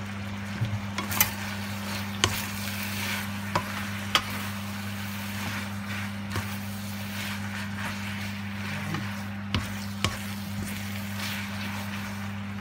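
Capellini with chicken and mushrooms sizzling in a nonstick frying pan as it is tossed and stirred with a wooden spatula, with a few sharp taps of the spatula against the pan, most in the first few seconds. A steady low hum runs underneath.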